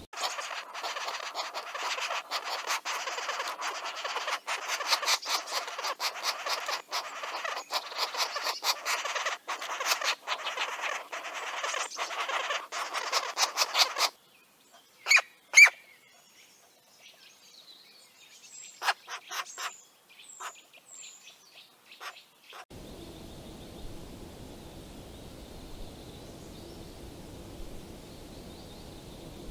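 Birds calling: a dense, chattering chorus of many quick notes for about fourteen seconds, which stops abruptly and gives way to a few separate sliding chirps. Near the end the birds give way to steady outdoor background noise.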